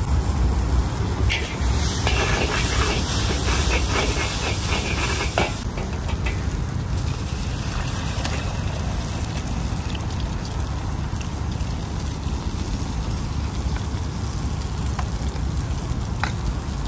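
Noodles stir-frying in a large steel wok over a high gas flame: a steady sizzle with the burner's rushing rumble underneath, and a few clinks and scrapes of the metal ladle against the wok. Louder for the first five seconds or so, then steadier.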